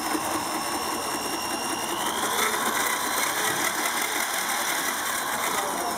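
Metal planetary gear train whirring at speed as a cordless drill and an electric motor drive its two inputs, with a high whine that rises in pitch about two seconds in.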